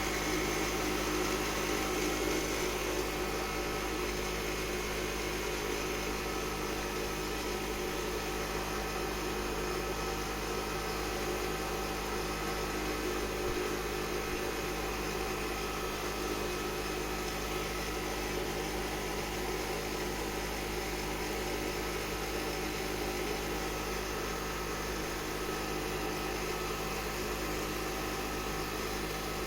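A machine running with a steady, unchanging hum over a haze of noise.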